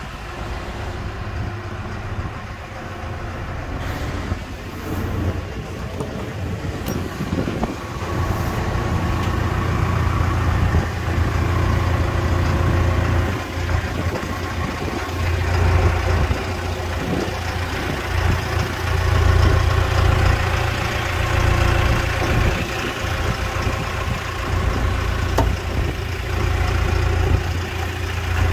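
Liebherr A 912 wheeled excavator's diesel engine idling steadily, louder from about eight seconds in.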